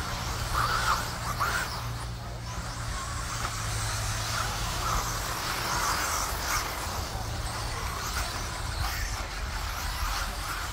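Small RC racing trucks running on a dirt track, their motors whining in brief swells as they pass, over a steady low hum.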